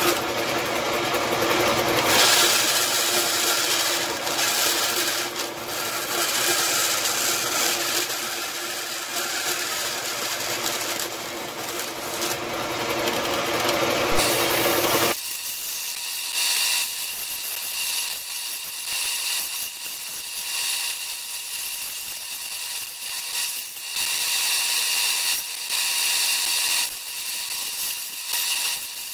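Bandsaw running and cutting through a sheet-metal blank in short relief cuts along a curved line, the blade rasping steadily through the metal. About halfway through, the sound drops suddenly to a quieter, thinner hiss.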